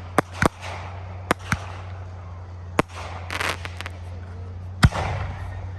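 Fireworks going off: a string of sharp reports, five in the first three seconds, then a crackling burst, and the loudest bang near the end trailing into a rumbling echo. A low steady hum runs underneath.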